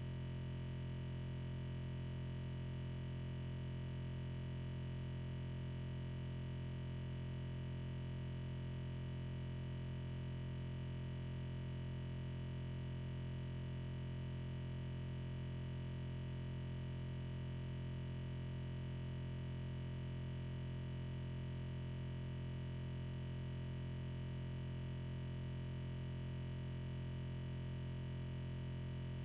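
A steady electronic hum, with a low drone that never changes in pitch or loudness.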